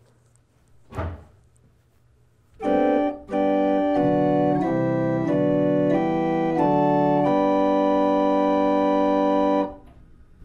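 Pipe organ playing a slow hymn in full sustained chords, changing chord every half second or so, then holding a long final chord that cuts off cleanly. A single short thump comes about a second in, before the playing starts.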